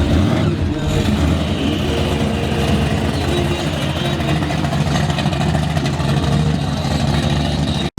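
Car engine running loudly and steadily, cutting off abruptly just before the end.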